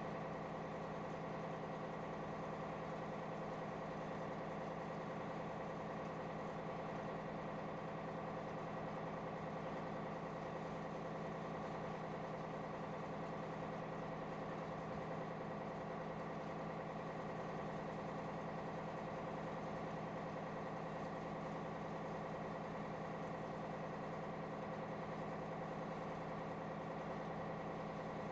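Large cargo ship's diesel machinery running with a steady, even hum made of several low tones.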